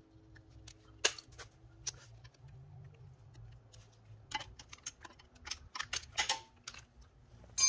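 Scattered light metallic clicks and taps of a flathead screwdriver working on the old front wheel bearing to pry its pieces out, with a sharper click about a second in and a run of clicks in the second half.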